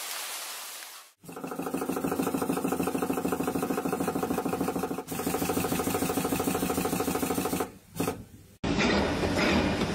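Factory machinery in short clips. After a second of hiss, a machine runs with a steady pitched hum that pulses rapidly. A little before the end, after a brief break, a noisier clinking machine sound takes over.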